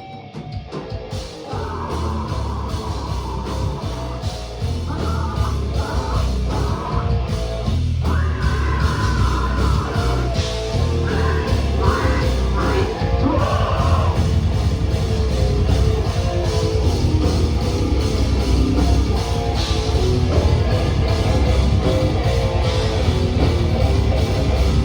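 Loud, heavy hardcore-style rock music with yelled vocals and heavy bass, kicking in about a second in.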